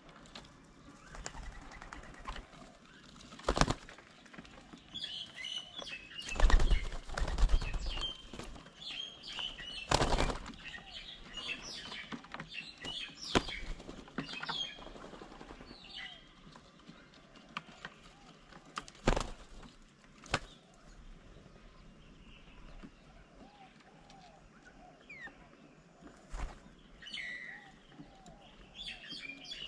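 Birds flapping their wings as they fly in, land and take off at a feeding table, in several short bursts, with brief high chirps from small birds in between.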